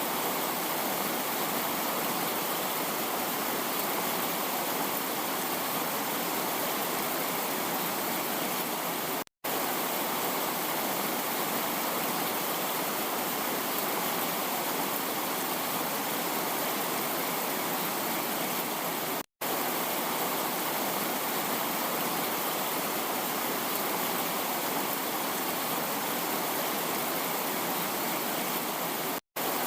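Heavy rain falling as a dense, steady hiss with no separate drops standing out. The sound cuts out briefly three times, about ten seconds apart.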